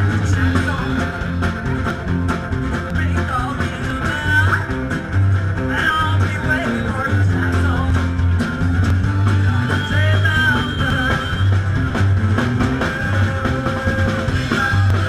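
Live rock and roll band playing: guitar, bass and drums with a steady, bouncing bass line, and a woman singing into the microphone.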